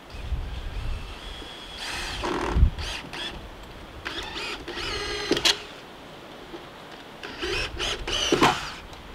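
Cordless drill driving screws into timber in three runs, its motor whine rising and falling in pitch with each run.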